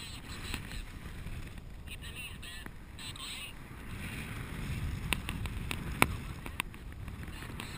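Wind rushing over the microphone of a harness-mounted camera on a paraglider in banked flight, a steady rumble that swells slightly past halfway. A few sharp clicks come about five, six and six and a half seconds in.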